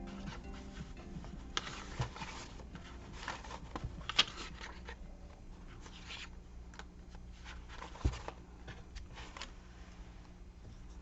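Paper being handled and rustled in short swishes, with a few soft taps on the work surface.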